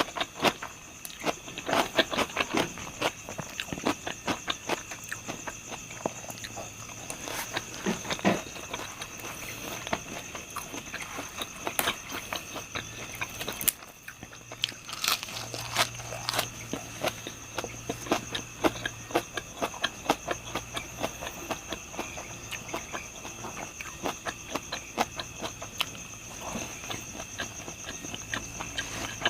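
Close-up chewing and crunching of fried pork intestine and liver, with many crisp bites and mouth clicks. A steady high-pitched tone sits underneath.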